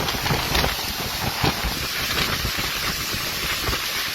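Storm wind blowing hard in gusts, buffeting the microphone with irregular low thumps over a steady hiss.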